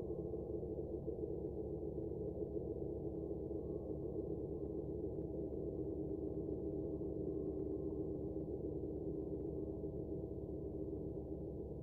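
Steady electronic drone of several held tones, an unchanging background hum.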